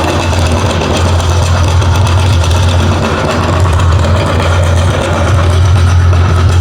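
Electric meat grinder running steadily, its motor giving a loud, even low hum.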